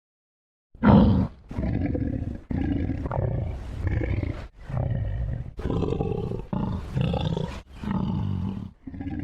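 An animal's low, rough growling calls, repeated roughly once a second in a run of about eight, starting just under a second in.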